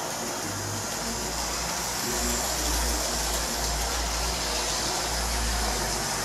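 Model train running on its track: a low rumble of wheels and motor that grows louder about two seconds in as the train passes close by, over a steady hiss.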